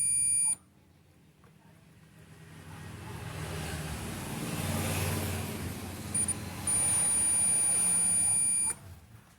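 Digital multimeter's continuity buzzer beeping: a short beep at the start, a brief chirp about six seconds in, then a steady beep held for about two seconds, signalling a short across the SMD diode being probed on the power supply board. Behind it, a passing vehicle's noise swells and fades.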